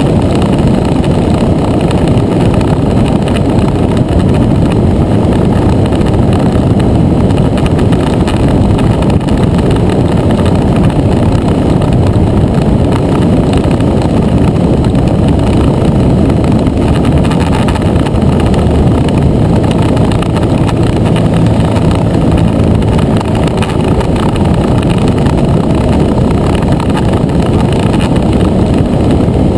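Motor scooter riding steadily at road speed, heard from a camera on its fairing: heavy wind rushing over the microphone with the engine running underneath.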